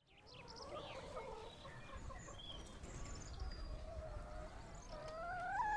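Free-range laying hens clucking and calling, fading in at the start, with a drawn-out rising call near the end and higher chirps above.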